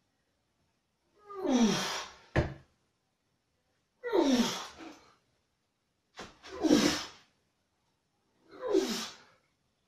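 A man breathing out hard with his voice on each dumbbell curl, four times about two and a half seconds apart, each breath falling in pitch. There is a short click just after the first breath.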